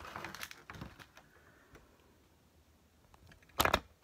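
Hands handling clear plastic packaging: light clicks and taps in the first second, then two sharp plastic clicks close together near the end.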